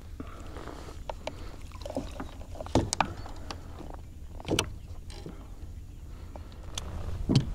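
Water sloshing at the side of a plastic kayak as a freshly caught redfish is held in the water, with a few sharp knocks against the hull; the loudest knock comes near the end. A low steady rumble sits under it all.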